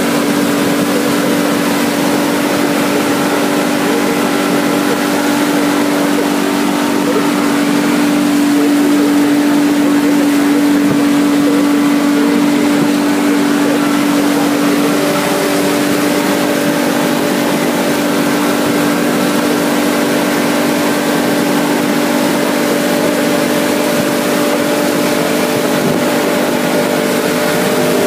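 Yamaha 150 HP outboard motor running steadily at planing speed, its even engine note over the rush of water along the hull and wake. The engine note changes slightly about halfway through.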